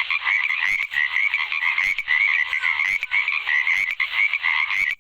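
Frog calls: a steady run of rapid, pulsed croaking that stops abruptly at the end.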